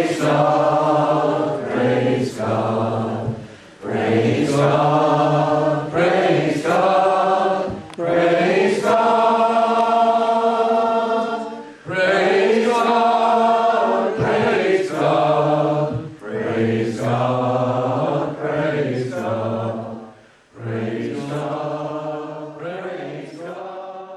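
A small congregation singing together in phrases of a few seconds each, with short breaks for breath between them; the singing fades out at the end.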